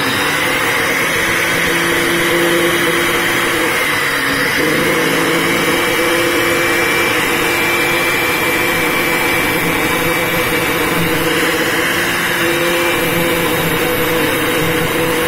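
Electric angle grinder running steadily with an abrasive disc while a steel bolt head is held against the spinning disc to round it off. Its whine wavers slightly in pitch.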